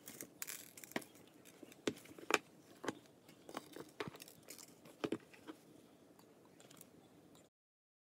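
Faint handling noise of a clear plastic box of sprinkles: scattered light clicks, taps and rattles as a hand works in the box. The sound cuts off abruptly near the end.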